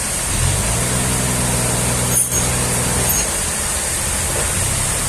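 An engine running with a low, steady note. It picks up about half a second in and eases back after about three seconds, over a constant hiss.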